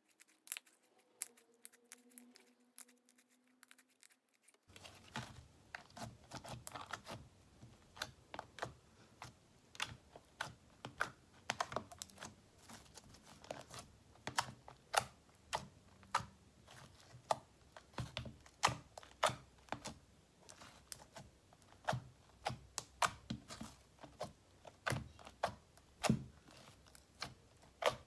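Clear slime being squeezed and poked by hand, giving irregular sticky clicks and pops. The clicks become denser about five seconds in.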